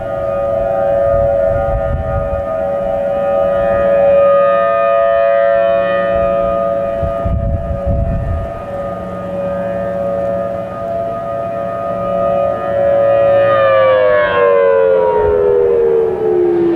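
Outdoor warning sirens, with Federal Signal Thunderbolt 1000T mechanical sirens among them, sounding a steady two-note tone that holds level, then winds down in falling pitch about 13 seconds in as the rotors coast down at the end of the signal.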